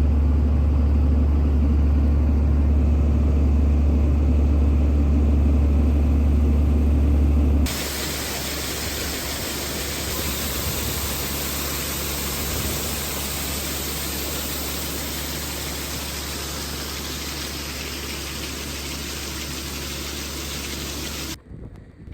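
Tractor engine running steadily at about 1400 RPM, driving a grain auger through the PTO while soybeans are unloaded. About eight seconds in, the sound switches abruptly to a steady, even hiss, which cuts off shortly before the end.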